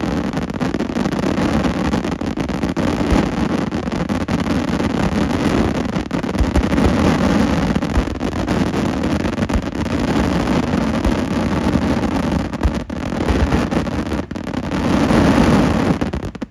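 Daytime fireworks going off in a dense, continuous rumbling roll of bangs, swelling near the end and stopping abruptly.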